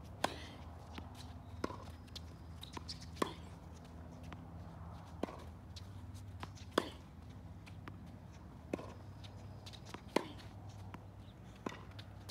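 Tennis serve and rally on an outdoor hard court: the racket strikes the ball just after the start, then sharp racket hits and ball bounces follow about every one and a half seconds, some much louder than others. A low steady hum lies under it all.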